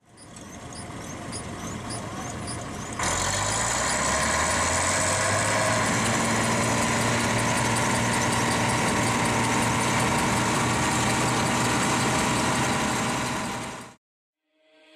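Bizon combine harvester's diesel engine running steadily, loud from about three seconds in after a quiet fade-in, and cut off abruptly near the end.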